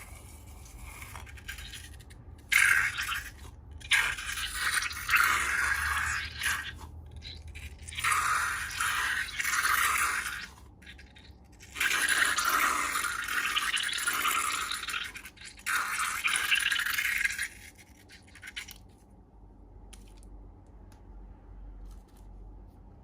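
Slime being squished and stirred, giving a wet, crackly squelching in about five separate stretches of a second or more each, which stops a few seconds before the end.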